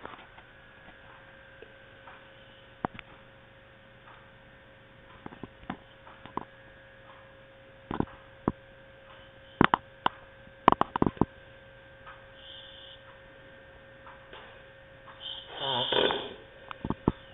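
A sleeping person snoring: long quiet stretches broken by a few sharp clicks, a cluster of them about ten to eleven seconds in, and one loud snore near the end. A steady electrical hum runs underneath.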